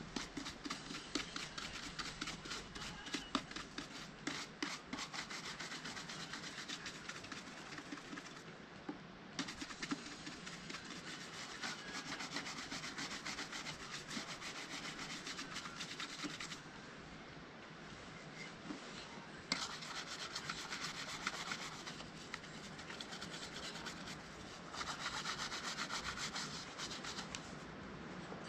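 Wooden-backed shoe brush swept rapidly back and forth over a leather dress shoe, a fast scratchy bristle rustle. It pauses briefly twice along the way.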